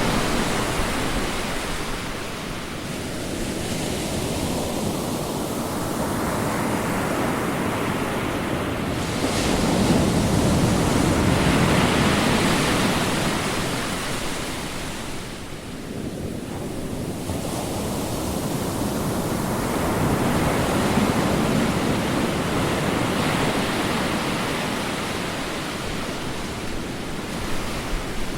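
Ocean waves washing onto a shore: a continuous hiss of surf that swells and recedes over several seconds, with a couple of larger breakers and a lull in between.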